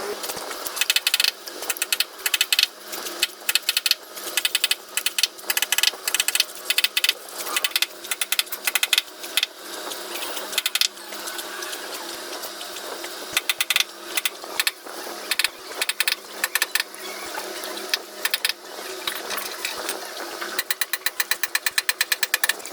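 Woodworking tool sounds: irregular sharp knocks and clicks over a steady mechanical noise, turning into a fast, even run of ticks near the end.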